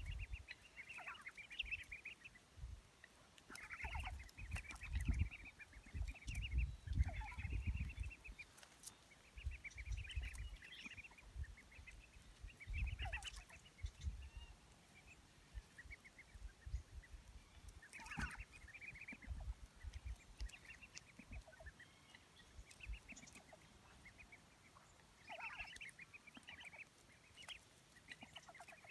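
Ducklings peeping in quick high trains of calls, in repeated clusters. Bursts of low rumble come and go through the first half.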